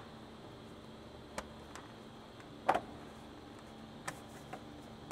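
A handful of light, scattered clicks and taps of plastic trim being handled: a push-in retaining clip and the plastic fender liner being fitted back into place, the loudest click about halfway through. A faint steady hum runs underneath.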